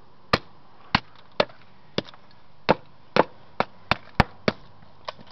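A broken LG cell phone being smashed with hard, quick blows: about eleven sharp strikes in close succession, bunching up near the middle.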